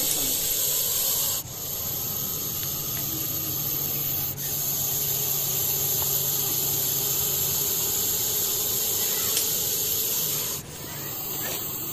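Russell's viper hissing steadily in long hisses, each broken by a short pause for breath: once about a second and a half in, again about four seconds in, and again near the end.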